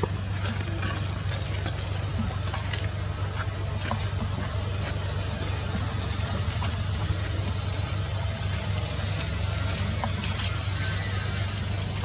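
Steady low hum with a broad hiss over it and a few faint scattered clicks, without a pause or change.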